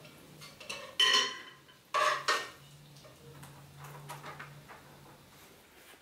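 Metal cookware clanking: a sharp ringing clink about a second in, then two more ringing clinks around two seconds in, over a faint steady low hum.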